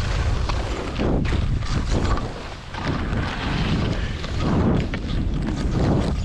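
Wind buffeting a GoPro microphone while skiing downhill, with skis scraping across the snow in swells that rise and ease about every second as the turns go.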